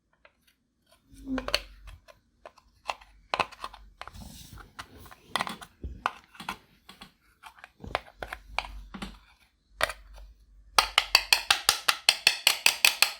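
Clear slime being squeezed and pressed by hand, giving scattered sticky clicks and pops, then a quick, even run of loud clicks, about six a second, near the end.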